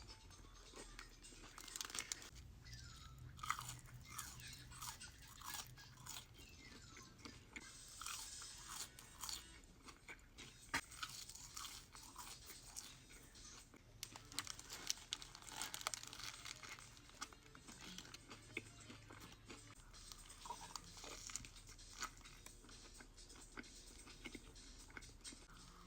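Close-miked chewing and crunching of fast food, with irregular wet clicks and bites.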